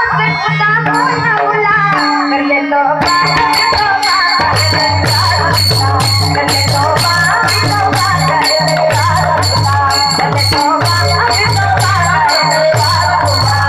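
Music with a melodic voice line over a low pulsing bass; about three seconds in a crisp, high percussion beat, like a shaker or rattle, joins and keeps a steady rhythm.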